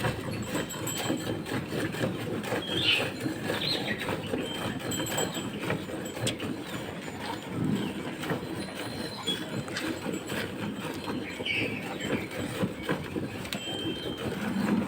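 A cow being milked: milk streams squirting into a pail in a quick, continuous rhythm of short strokes, with a few faint high chirps.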